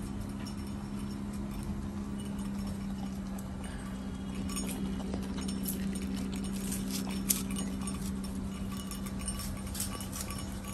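Labrador puppy eating from a stainless steel bowl: chewing and smacking with irregular clicks, which grow more frequent about halfway through. A steady low hum runs underneath.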